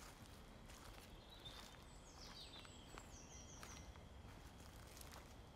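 Faint woodland birdsong: a few short, high chirping phrases from small songbirds that fall in pitch, over a steady low background noise, with a few faint clicks.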